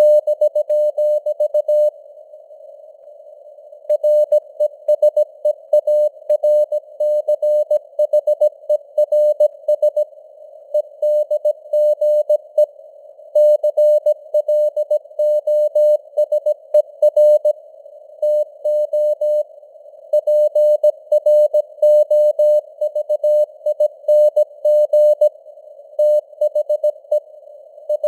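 Morse code (CW) sent at 17 words per minute as a single mid-pitched keyed tone, over a narrow band of simulated radio receiver hiss. It beeps out dots and dashes with short gaps between words and a longer pause of about two seconds near the start.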